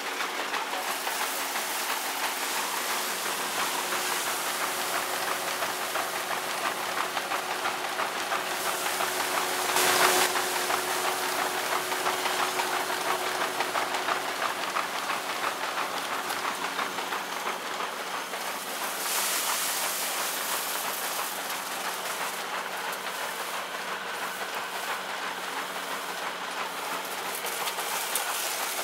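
Old wooden threshing machine running under load: a steady mechanical hum with a fast, even rattle while grain is threshed out, with a brief louder burst about ten seconds in.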